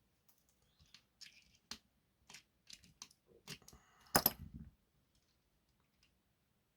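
Irregular small clicks and taps from tools and parts being handled on an electronics workbench, loudest about four seconds in.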